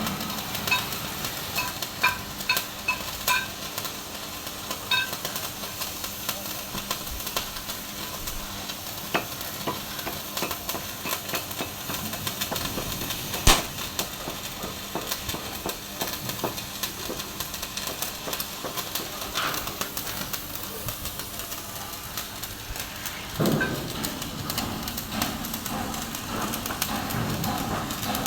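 Electric arc welding: a steady crackling sizzle from the arc, dotted with sharp pops, one much louder than the rest about halfway through. A lower rushing sound joins near the end.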